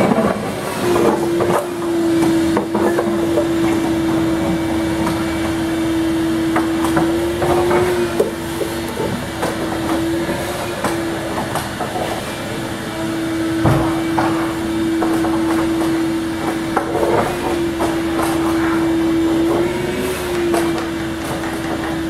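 Workshop machinery running with a steady, slightly wavering whine, mixed with scattered knocks and taps of hand work in the shop.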